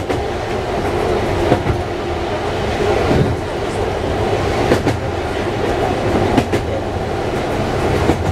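Oigawa Railway 16000 series electric multiple unit running, heard from inside the driver's cab: a steady rumble and low hum of the moving train, with a few short sharp clacks.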